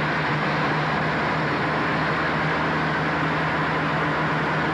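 Steady road noise inside a moving car: tyre and wind noise with a steady low hum under it.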